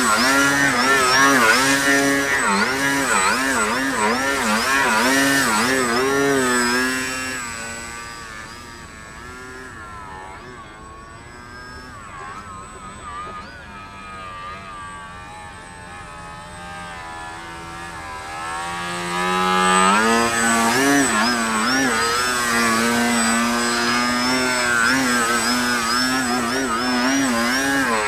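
Radio-controlled Yak 55M aerobatic plane's motor and propeller, its pitch wavering quickly up and down with throttle as the plane hovers nose-up near the ground. The sound fades to a fainter, lower note for about ten seconds while the plane flies high and away, then returns loud at about twenty seconds in as it comes back to hover.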